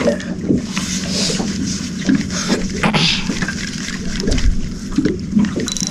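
A boat's motor humming steadily, with brief hissing bursts of water noise about a second in and again about three seconds in, and faint voices in the background.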